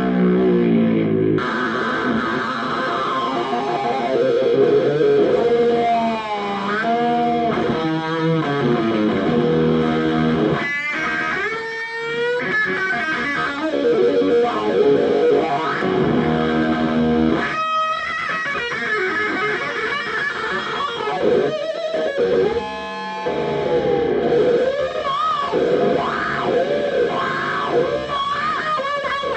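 Electric guitar lead played through an Arbiter Fuzz Face fuzz pedal with NKT275 germanium transistors and a Marshall Bluesbreaker, giving a thick fuzz tone. The notes are bent up and down with wide vibrato throughout.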